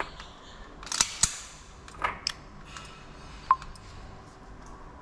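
A few sharp metallic clicks and clinks as a 9mm Browning pistol and its magazines are handled at the bench. There are two quick clicks about a second in, a couple more around two seconds, and a single short ringing clink of metal near the end.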